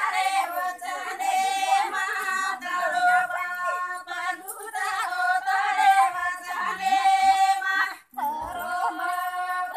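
A group of women singing a Banjara devotional song together, with long held notes and a short break about eight seconds in.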